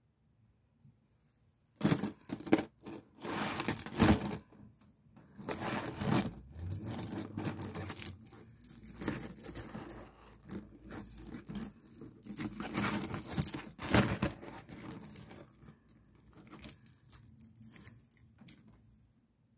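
Plastic and glass beads on a handmade beaded bag clicking, rattling and rustling as it is handled and turned over. The sound comes in irregular bursts that start about two seconds in.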